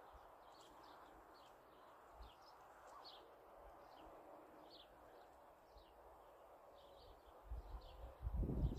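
Faint small-bird chirps, short falling notes repeated irregularly, over a faint steady hiss. Near the end, low rumbling bumps of wind or handling on the microphone.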